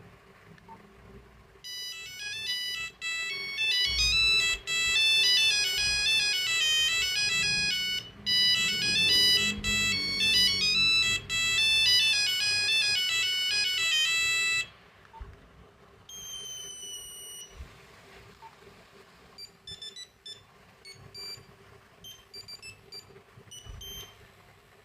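Nokia 8250 monophonic ringtone playing through the phone's small speaker: a fast melody of buzzy electronic beeps that starts about two seconds in and stops abruptly after about thirteen seconds. A brief gliding tone follows, then scattered short beeps.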